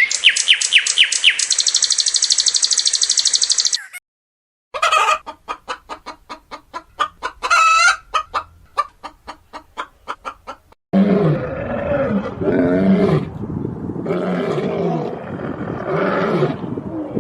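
Chickens calling in three separate bits: high, rapid chirping, then after a short break a run of short, quickly repeated clucks, then lower, overlapping calls from several birds.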